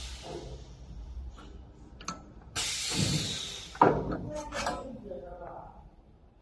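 Thin metal sheet being worked on a magnetic sheet metal brake: a rushing scrape of about a second, about two and a half seconds in, then one sharp metal clank and a few lighter knocks.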